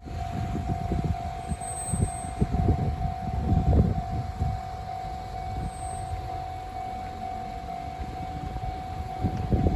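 Japanese level-crossing warning bell on the Enoshima Electric Railway (Enoden) ringing as a steady repeating tone, the signal that a train is approaching. Under it are irregular low rumbles, loudest around four seconds in.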